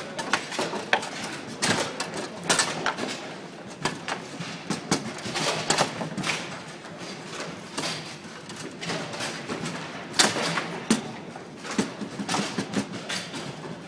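Babyfoot (table football) match in play: irregular sharp clacks and knocks of the ball being struck by the players' figures and hitting the table walls, with the rods knocking. Similar clatter from other tables echoes through the hall.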